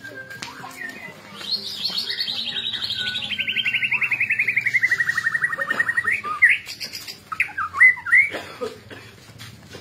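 White-rumped shama (murai batu) giving a long, fast rattling trill that falls steadily in pitch over about five seconds, followed by a few loud, sharp whistled notes.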